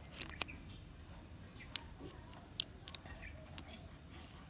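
Scattered sharp clicks and taps of small hard plastic pieces being handled, such as a Kinder Surprise toy capsule and its toy parts, about six in all.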